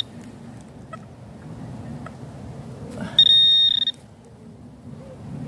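Metal-detecting pinpointer probe giving its high, steady alert tone for under a second about three seconds in, the sign that its tip is close to a small metal target in loose soil. A low rustle of soil and handling runs underneath.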